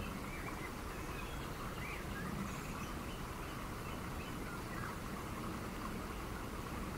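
Steady background hiss with a few faint, short chirps; no music.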